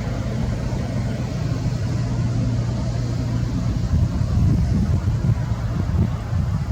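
Steady low rumble of road traffic, getting louder and more uneven about four seconds in.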